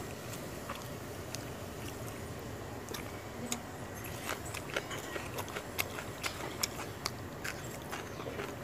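A person eating, chewing with irregular sharp mouth clicks and smacks, a few each second, over a steady low background.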